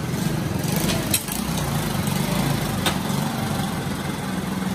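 Small engine running steadily with a low hum, like street traffic passing the stall, with two sharp clicks about one and three seconds in.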